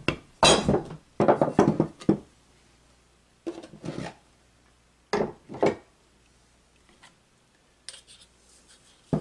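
A hammer and a wooden block knocking and clattering on a wooden workbench as they are used and set down after pressing a new bearing onto an electric motor's rotor shaft, a few sharp knocks in the first couple of seconds. Lighter knocks follow, then a few faint clicks as the rotor is picked up.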